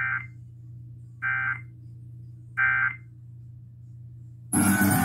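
Emergency Alert System end-of-message data tones: three short, buzzy digital bursts about 1.3 seconds apart, marking the end of the test alert, over a low steady hum. Rock music starts abruptly about four and a half seconds in.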